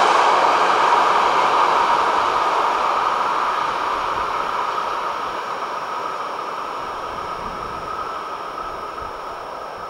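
Freight train of container flatcars rolling away down the track, its running noise fading steadily as it recedes. A faint steady high tone lingers under it toward the end.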